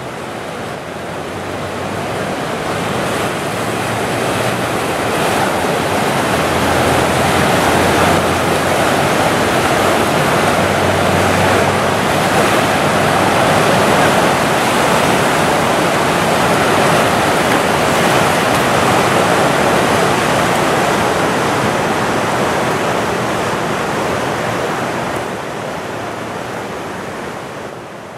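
Flood-swollen river rushing through rapids: a loud, steady wash of churning water that swells up over the first few seconds and fades away near the end.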